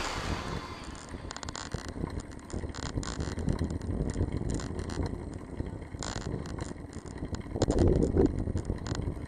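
Riding noise picked up by a bicycle-mounted camera: wind on the microphone and tyre rumble on asphalt, with irregular small clicks and rattles from the bike and mount over the road surface. It gets a little louder about eight seconds in.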